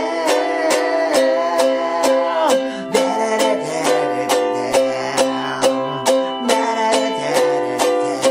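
A G-Labo Hajimete Ukulele strummed in a fast, even rhythm through an Am–G7–C chord progression, with a man singing over it.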